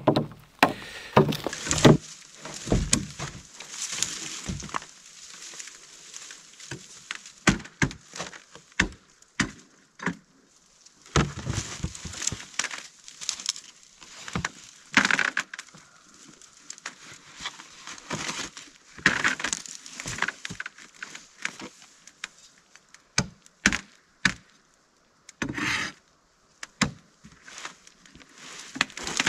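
A plastic sled scraping and knocking over thin lake ice as a man poles himself out in it, with irregular sharp knocks and cracks as the pole jabs the ice.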